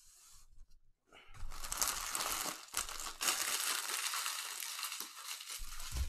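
Plastic trading-card pack wrappers crinkling and tearing as a new pack is opened. The crackling starts about a second in and runs on without a pause.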